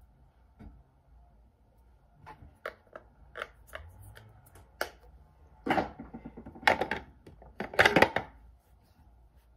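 Makeup products and their packaging being handled and set down close by: a string of light clicks, then three louder clattering rustles near the end.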